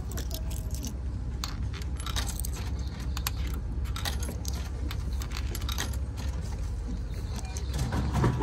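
Coins being fed into a drinks vending machine's coin slot: a run of small metallic clicks and clinks over a steady low rumble, with a louder, lower sound near the end.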